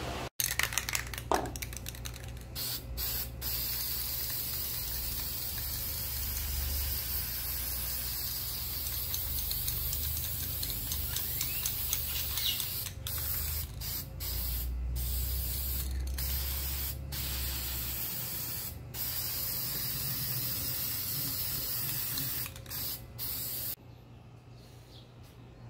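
High-heat paint being sprayed onto bare steel: long hissing passes, broken by short pauses several times, stopping near the end.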